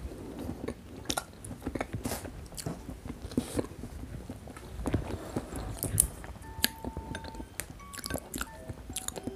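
Close-miked chewing and wet mouth clicks of someone eating braised potato in sauce, in short irregular bursts. Soft background music notes come in about two-thirds of the way through.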